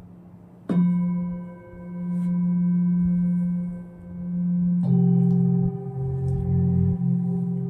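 A singing bowl is struck about a second in and rings on steadily with a slow pulsing swell. About five seconds in a second, lower-pitched bowl is struck, and the two ring together.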